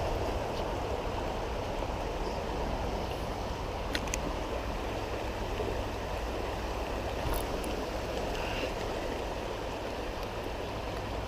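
A small creek's water running steadily, with a few brief faint clicks over it.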